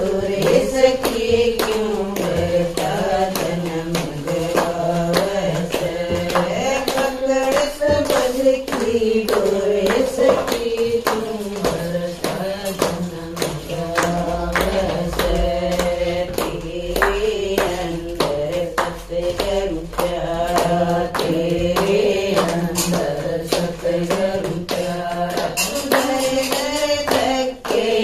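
A group of women singing a Haryanvi bhajan together, with steady hand clapping keeping the beat.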